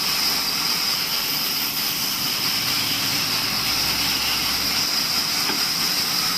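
Table sawmill running: a constant mechanical noise with a steady high whine.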